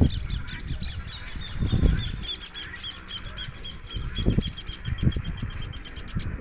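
A bird calling in a long, even series of short high notes, about six a second, fading near the end. Low rumbles on the microphone break in a few times.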